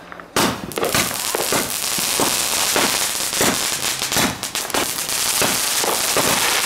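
A 96-shot consumer fireworks cake (Phantom Fireworks' Vapor Trails) firing shot after shot, about two a second. The shots sound over a continuous crackling haze that sets in about half a second in.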